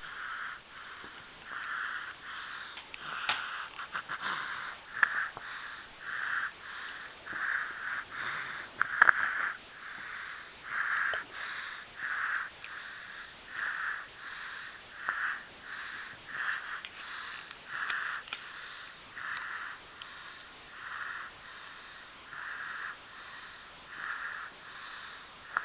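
Snoring: a fast, even run of rasping, hissy breaths, about three every two seconds. A few brief clicks fall among them, the sharpest about nine seconds in.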